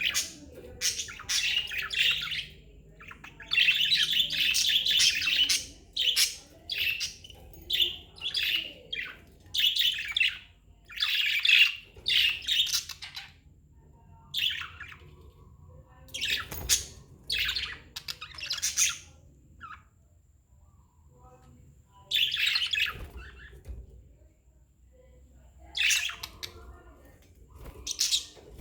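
Budgerigars chirping and chattering in repeated high bursts, broken by short quiet gaps, with a longer lull of a few seconds about two-thirds of the way through.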